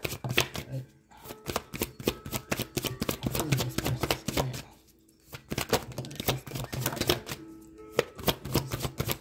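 A deck of tarot cards being shuffled by hand: quick runs of card flicks and slaps, with short pauses about a second in, around five seconds and near eight seconds.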